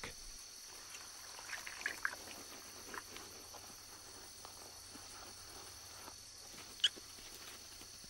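Faint steady chorus of crickets or similar insects, with soft rustling in the vegetation and one short high squeak near the end.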